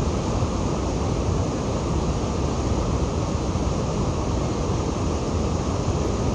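Steady, deep rushing noise of the Niagara River's whitewater rapids and falls, unbroken throughout.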